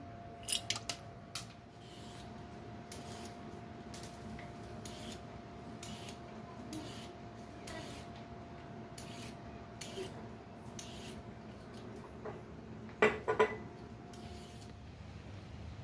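Vegetable peeler scraping down a carrot in quick, even strokes, about two a second, with a brief louder sound about two seconds before the end.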